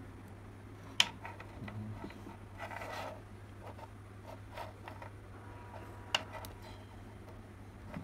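Handling noise from a fabric-covered cylindrical portable speaker being turned over and opened: two sharp clicks, about a second in and about six seconds in, a short scraping rustle around three seconds, and smaller ticks.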